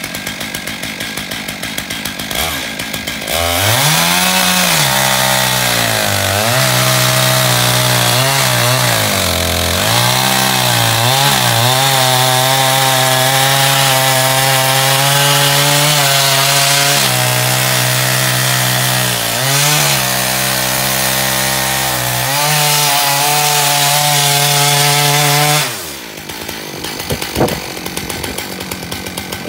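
Two-stroke chainsaw milling a slab from a jarrah burl. It runs quietly for the first few seconds, then goes to full throttle, its pitch dipping and recovering several times as the chain bites into the hardwood before it holds steady at full revs. The engine drops away abruptly a few seconds before the end, leaving a quieter rattle.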